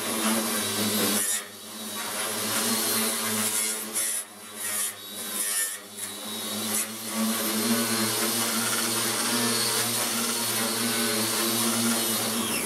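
Electric angle grinder with a wire brush attachment scouring rust off a flat steel sheet: a steady motor whine under a harsh scratching hiss. The sound dips briefly a few times in the first half.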